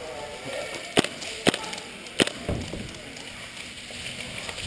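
Three sharp, loud cracks of airsoft guns firing single shots: about a second in, half a second later, and again just after two seconds.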